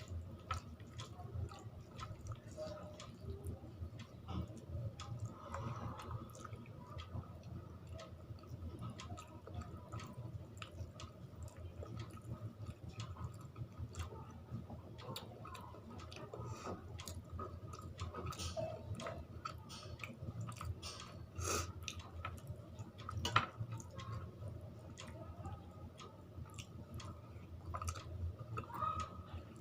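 Close-up chewing and wet mouth clicks of someone eating a meal of rice and curry, many small irregular smacks over a steady low hum. There is one sharper click about 23 seconds in.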